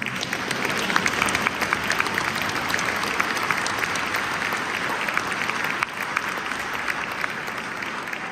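Audience applauding: the clapping swells within the first second, holds, and then tapers off toward the end.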